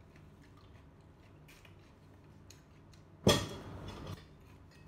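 A single loud knock against the table about three seconds in, with a short ringing clatter of dishes, amid a few faint clicks of eating.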